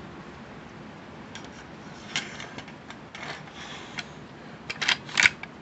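Metal clicks and scrapes of a Citadel PAT 12-gauge pump shotgun's receiver and bolt being handled during reassembly. Scattered light clicks give way to a quick run of louder clacks near the end.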